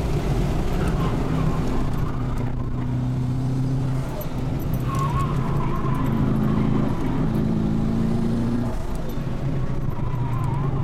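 Twin-turbocharged 6.0-litre V8 of a Holden Commodore SS wagon, heard from inside the cabin while driven hard on a race circuit. The engine note is steady but shifts in pitch a few times, with a brief drop in loudness about four seconds in.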